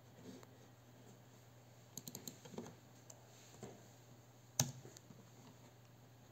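Laptop keyboard keys clicking a few times as a set score is typed into the scoreboard's web control page: a short cluster of light taps about two seconds in and one sharper key click about halfway through.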